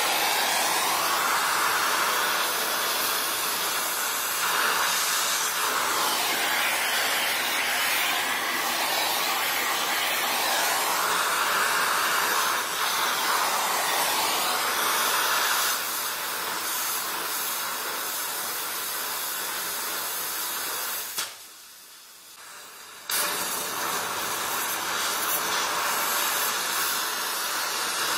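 Oxy-fuel gas welding torch (Donmet 132A micro) flame hissing steadily while welding a steel pipe, with a wavering rush over the first half that then settles lower. The hiss drops away for a couple of seconds about three-quarters of the way through, then comes back.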